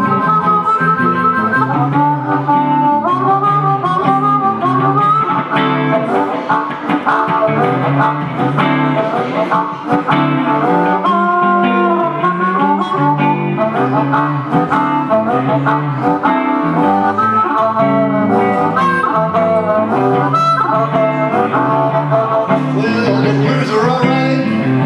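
Amplified blues harmonica solo, played into a hand-held microphone, with bent and held notes over a rhythm electric guitar. The harmonica drops out near the end while the guitar keeps going.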